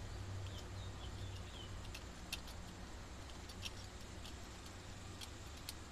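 Low, steady vehicle engine hum that fades out about three seconds in, with a few scattered light metallic clicks and taps of small parts being handled.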